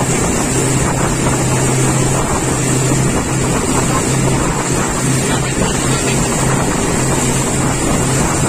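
Small motorboat under way at speed: the engine's steady low drone under the rush and splash of water along the hull.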